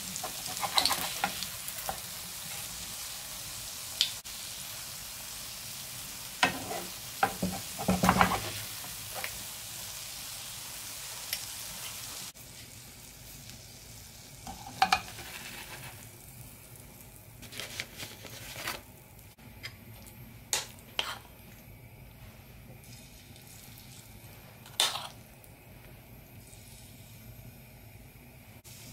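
Fritter batter frying in hot oil in a pan: a steady sizzle, with sharp knocks and scrapes of metal kitchen utensils as the fritters are turned. About twelve seconds in the sizzle drops to a quieter level, and a few more utensil knocks follow.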